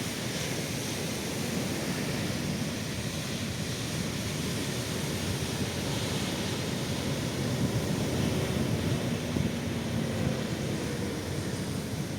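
Ocean surf washing onto a beach, a steady rushing of waves with wind rumbling on the microphone.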